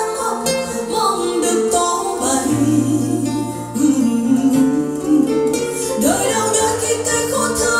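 A song with plucked guitar and singing, played back through a pair of Dali Zensor 1AX active bookshelf speakers as a listening test.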